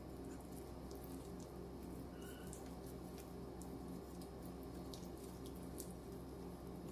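Faint wet handling of raw chicken as the meat is worked off the bone, a few soft ticks over a steady low hum.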